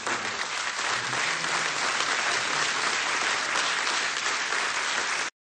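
Large audience applauding, a dense, steady clapping that ends suddenly about five seconds in.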